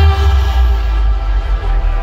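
Hardstyle music played loud through a festival sound system: held synth chords over heavy deep bass, with no kick drum in this stretch.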